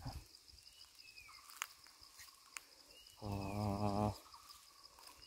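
Insects chirping steadily in the background with a fast, even, high-pitched pulsing. About three seconds in, a man's voice sounds for under a second.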